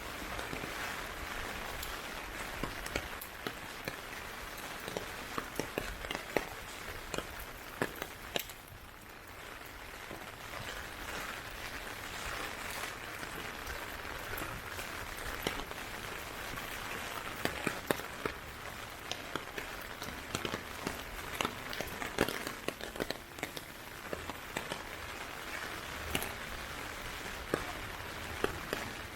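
Heavy typhoon rain falling steadily, with many sharp drop impacts scattered throughout; it eases briefly about nine seconds in.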